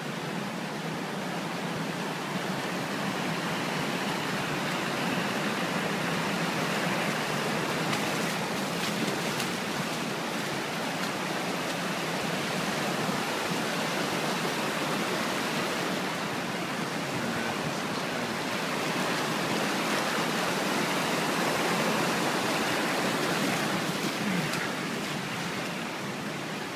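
Muddy floodwater from Fourmile Creek rushing in a steady churn across a washed-out asphalt road.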